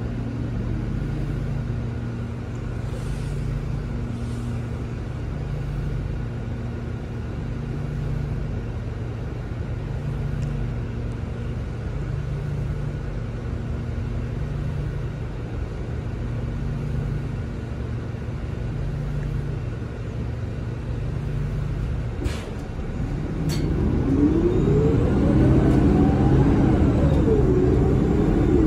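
Inside a NovaBus LFS CNG city bus with a Cummins L9N natural-gas engine: a steady low rumble with a slow regular pulse about every second and a half. A couple of sharp clicks come about 22 seconds in. The bus then grows louder as it pulls away, with a whine rising in pitch that drops once near the end and climbs again, as the Allison six-speed automatic shifts up.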